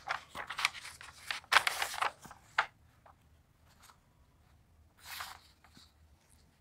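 Paper pages of a printed exam question booklet being turned and handled. A run of rustles over the first two and a half seconds is followed by one shorter rustle about five seconds in.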